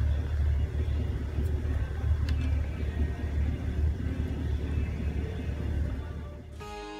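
Steady low rumble of an off-road Jeep rolling along a dirt trail, heard from the vehicle itself, with a few faint clicks. It fades out near the end as soft music comes in.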